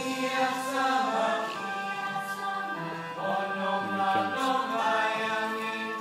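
Chorus of voices singing with musical accompaniment.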